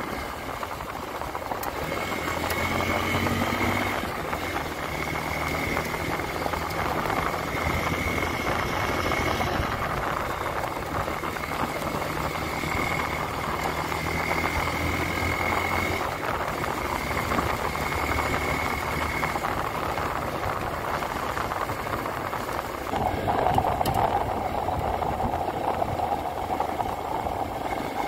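Hero Xpulse 200 4V's single-cylinder engine running while the bike is ridden, its note strengthening and easing in stretches with the throttle. A steady higher hum comes in about five seconds before the end.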